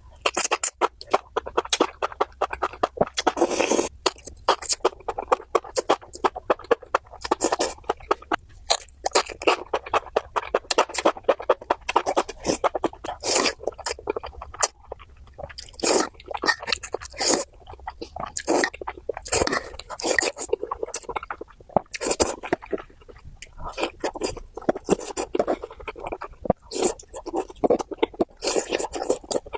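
Close-miked chewing and crunching of food: irregular crisp crackles and wet mouth sounds, bite after bite with short pauses.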